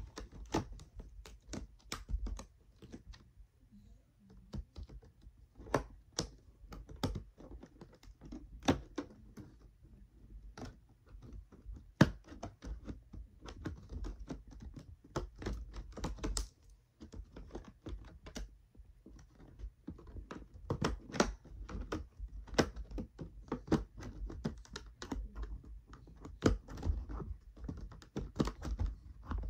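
Irregular clicks, taps and knocks of hands working at plastic toy packaging while struggling to open it.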